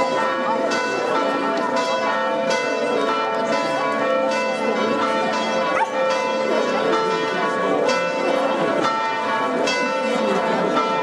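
Church bells pealing in repeated, overlapping strokes, each note ringing on, with a crowd talking underneath.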